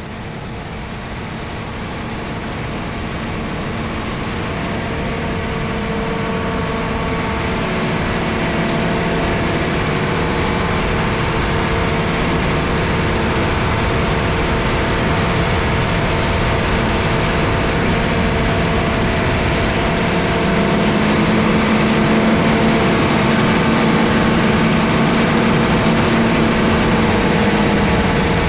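Engine of a John Deere R4038 self-propelled sprayer on Soucy tracks running steadily as it drives through a muddy field. It grows louder over the first several seconds, then holds steady, and its engine note rises slightly about two-thirds of the way through.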